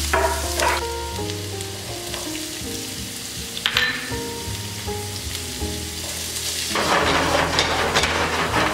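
Food frying in a hot frying pan, with gentle background music. About seven seconds in, the sizzle suddenly gets much louder as chopped green vegetables go into the hot oil.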